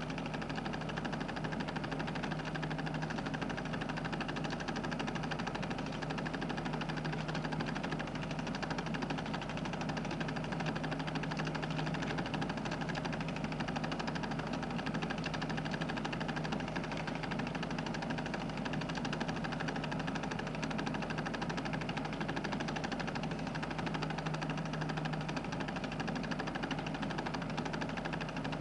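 Film projector running: a steady motor hum with a fast, even clatter of the film mechanism.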